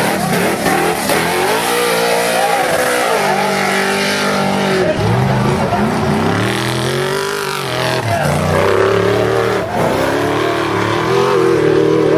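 Off-road race trucks and a buggy revving hard through a dirt corner one after another, engine pitch rising and falling with the throttle. One engine climbs steeply in pitch about five to seven seconds in.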